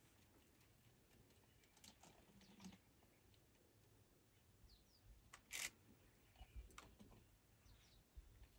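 Quiet, with a few faint snaps and rustles of leaves and twigs as an elephant's trunk pulls at a tree's branches, the loudest a brief rustle about halfway through. A bird chirps twice briefly just before it.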